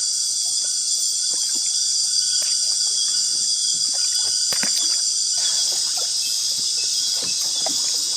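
Dense, steady, high-pitched chorus of insects in the Amazon rainforest, with a fainter lower steady tone that stops about five seconds in and scattered light clicks.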